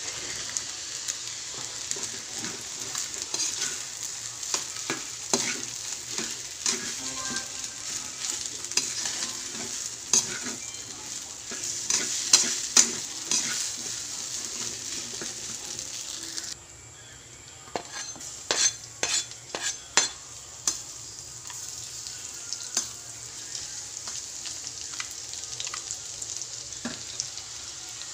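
Food sizzling in a steel wok while a spatula stirs and scrapes it, with repeated clicks and knocks against the pan. About sixteen seconds in, the sizzle drops suddenly and a run of sharper spatula knocks follows.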